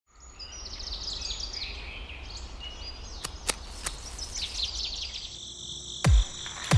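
Songbirds chirping in repeated quick high trills over a low rumble, then two deep booms, each falling in pitch, under a second apart near the end.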